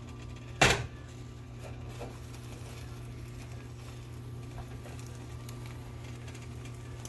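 A single sharp knock of a spatula against a nonstick frying pan about half a second in, then quiet cooking sounds over a low steady hum.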